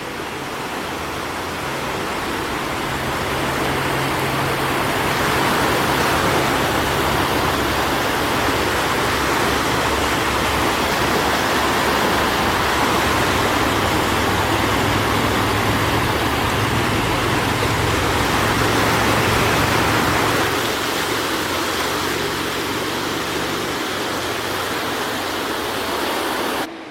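Lake Michigan waves washing onto the shore: a steady rushing wash that builds over the first few seconds and eases slightly near the end, with a faint low hum underneath.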